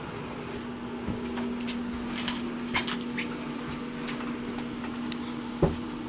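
Steady hum with scattered light clicks and taps and one dull knock near the end: handling noise from a camera being carried through a travel trailer's interior.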